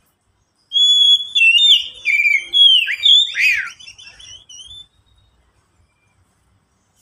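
Oriental magpie-robin singing a loud run of clear whistled phrases that glide up and down, trailing off into softer notes about four seconds in.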